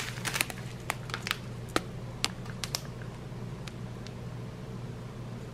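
Clear plastic bags of round diamond-painting drills being handled: scattered crinkles and small ticks, busiest in the first three seconds, over a faint steady low hum.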